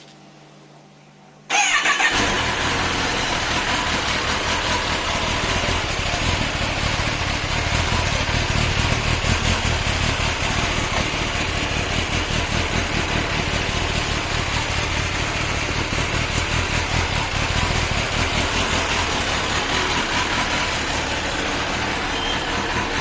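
2021 Kawasaki Ninja ZX-10R's 998 cc inline-four starting about a second and a half in, then idling steadily through its updated stock exhaust. The exhaust note is loud.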